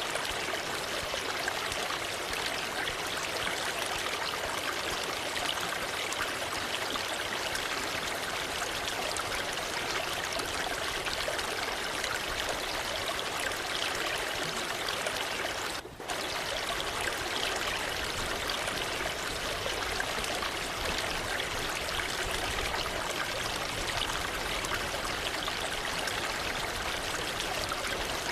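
Waterfall water rushing and splashing in a steady, even roar, with a momentary dip in level a little past halfway.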